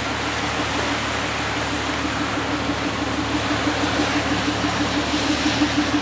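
Steady rushing background noise with a low hum that pulses rapidly and evenly, growing a little louder in the second half.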